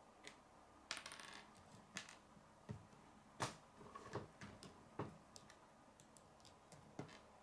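Plastic K'nex pieces clicking as they are pressed together and knocked against a wooden tabletop: a few faint scattered clicks, with a short rattle about a second in and the sharpest click about halfway through.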